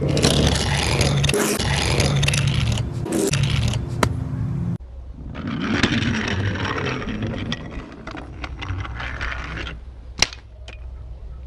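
Toy vehicle rattling and scraping along a track, with a low steady hum under the first half. It breaks off about five seconds in, then goes on more quietly with scattered sharp clicks near the end.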